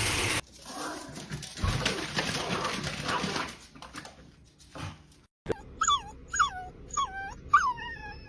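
A dog whimpering: a run of about five high, whining cries, each falling in pitch, starting a little over halfway through. Before them come a few seconds of indistinct noise.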